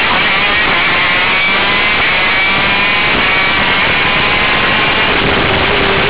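KZ2 shifter kart's 125cc two-stroke engine running hard at close range, its pitch drifting up and down as the kart goes through the corners.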